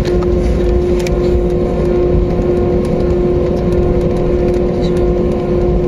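Airbus A320neo's geared turbofan engines running steadily, heard from inside the cabin. The sound is a steady hum with a strong held tone over a low rumble.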